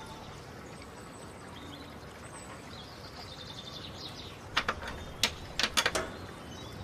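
Outdoor ambience with faint birdsong, then a quick series of about seven sharp clicks a little over halfway through.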